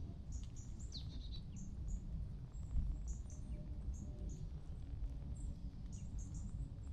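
Small birds chirping in short, high calls scattered throughout, with one longer call about a second in, over a steady low rumble.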